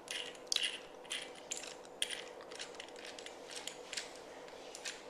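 Metal clicking and clinking as a socket is turned with a screwdriver through it, undoing the blade nut on a brush cutter's gearhead; sharp, irregular clicks about two a second.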